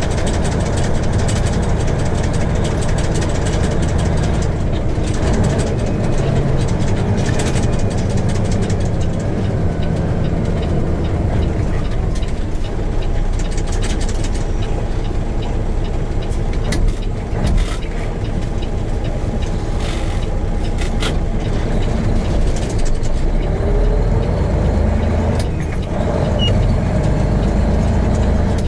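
Peterbilt semi truck's diesel engine running steadily under way, a low rumble heard from inside the cab, with a few short clicks and rattles.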